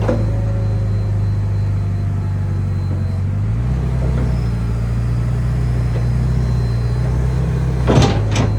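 Hitachi ZX250-5 excavator's diesel engine running with a steady low drone, its note changing slightly about three and a half seconds in. A quick run of sharp knocks comes near the end.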